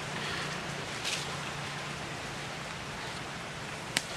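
Steady hiss of forest ambience with a faint low hum underneath, a brief rustle about a second in and a single sharp click near the end.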